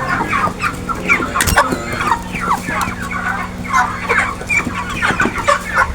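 A flock of chickens clucking and calling, many short calls overlapping, over a steady low hum, with one sharp knock about a second and a half in.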